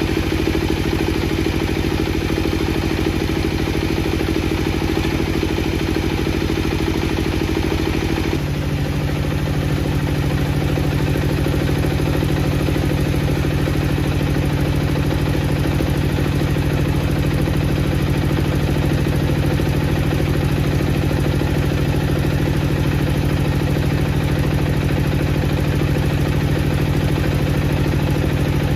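Wood-processing machinery running steadily with a constant pitched drone; about eight seconds in the sound changes abruptly to a lower-pitched steady drone.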